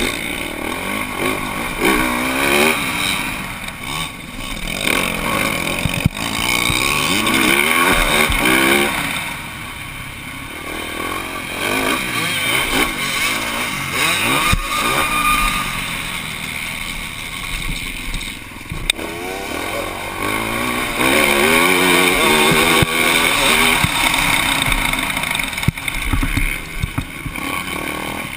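Motocross bike's engine heard from a helmet-mounted camera, revving hard and dropping back again and again as the rider accelerates, shifts and brakes through the track, the pitch rising and falling every few seconds.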